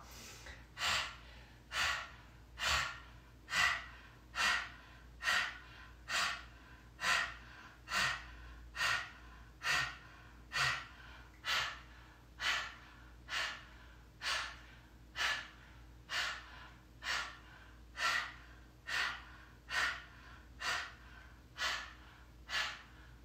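A woman's forceful, rhythmic breaths through the open mouth during a kundalini yoga breathing exercise: short, even puffs of air, about one a second, kept up without a break.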